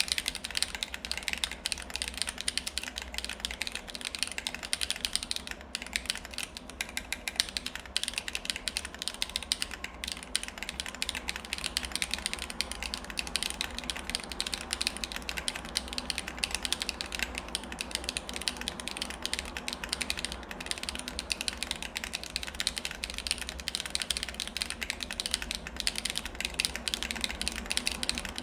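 Continuous fast typing on a MechVault Vault35 mechanical keyboard with lubed HMX Cheese switches, DSS keycaps and an ABS plate: a dense, irregular stream of keystroke clicks and clacks. A steady low background hum sits underneath.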